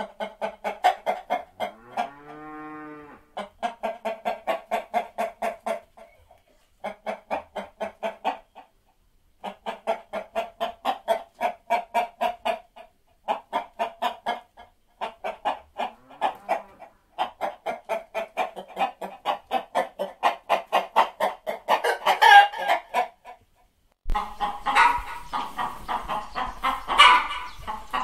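Hens clucking in quick runs of about four or five clucks a second, broken by short pauses, with one drawn-out call about two seconds in and a louder squawk about 22 seconds in. About 24 seconds in the recording changes to a noisier one with a low hum under more clucking and calls.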